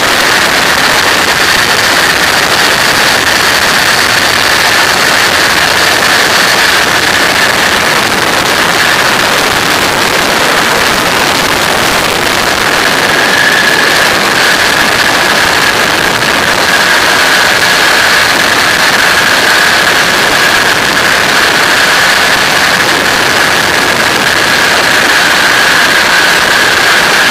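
Microlight aircraft's engine and propeller running steadily in cruise, under heavy wind rush on the open-air microphone. A steady high whine sits on top and drops slightly in pitch about halfway through.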